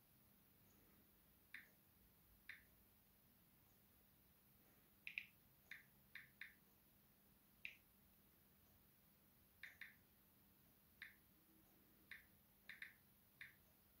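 Faint, short clicks of typing on a smartphone's on-screen keyboard: about fifteen irregular taps, some in quick pairs, over a low hiss.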